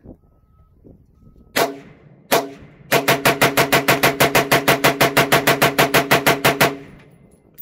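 AR-15 rifle firing 5.56 rounds: two single shots about three-quarters of a second apart, then a fast, unbroken string of about 28 shots at roughly seven a second that cuts off suddenly.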